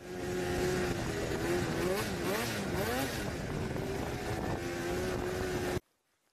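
Snowmobile engine running, its pitch swinging up and down as the throttle is worked a couple of times, then cutting off abruptly near the end.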